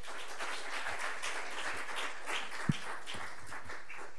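Audience applauding, with one low thump about two-thirds of the way through.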